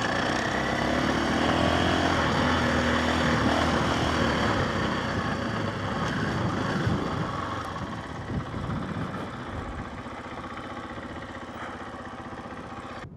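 KTM 500 EXC single-cylinder four-stroke dirt bike engine running and revving, its pitch shifting up and down; loudest over the first half, easing lower and quieter later.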